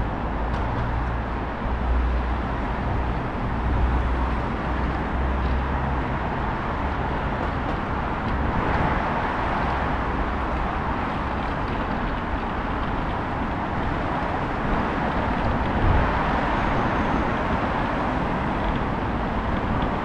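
Steady city traffic noise: a continuous hum of road vehicles, with a heavy low rumble underneath.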